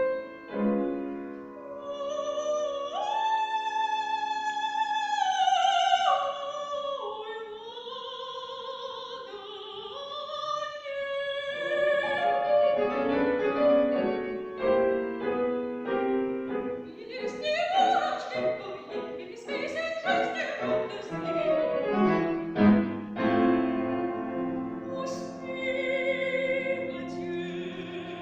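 A woman singing in classical operatic style with piano accompaniment. A few seconds in she holds a long high note, then the line steps downward, and a stretch of quick piano notes follows.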